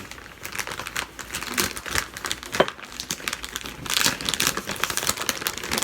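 Plastic wrapping crinkling and crackling as it is handled, irregularly throughout, with a brief squeak about two and a half seconds in.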